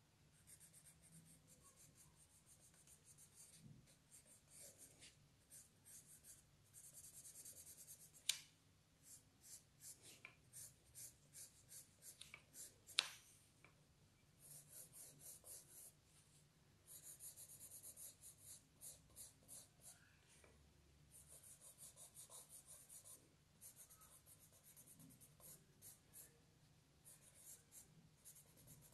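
Faint pencil strokes on paper, quick back-and-forth hatching at about three strokes a second in runs with short pauses, as the drawing is shaded and detailed. Two sharp taps come about eight and thirteen seconds in.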